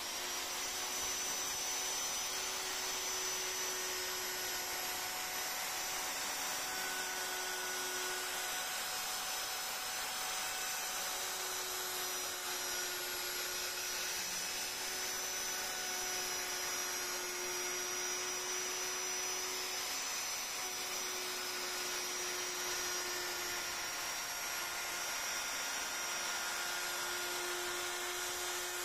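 Electric plunge router running at a steady high speed with a constant whine while its small bit cuts curved grooves into a wooden board.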